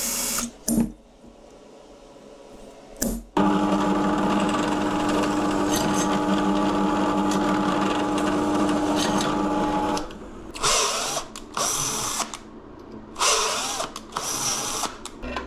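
Power drills boring holes in aluminium. A cordless drill runs briefly, then a bench drill press runs steadily for about six seconds, drilling through aluminium square tube. Near the end, a cordless drill drills into an aluminium leg in several short bursts.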